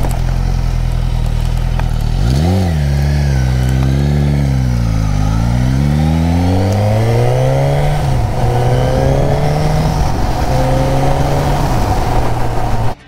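Motorcycle engine on the move: its note wavers down and up a few times, climbs steadily as it accelerates, drops sharply about eight seconds in, then holds steady before cutting off abruptly near the end.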